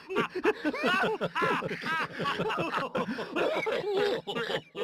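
A small crowd laughing and chuckling together, several voices at once, mixed with bits of talk.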